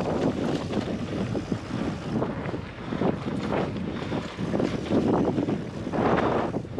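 Wind buffeting the microphone of a handlebar-mounted GoPro, swelling and easing in gusts, over a mountain bike rolling along dry dirt singletrack with small rattles from bumps.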